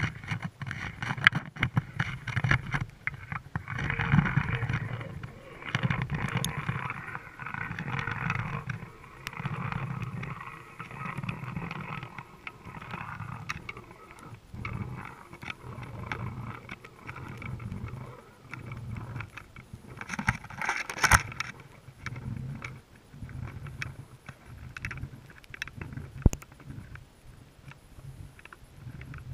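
Muffled underwater sound heard through a GoPro's waterproof housing: a low rush of water that swells and fades about every two seconds, with scattered clicks and knocks, a cluster of them about two-thirds of the way in.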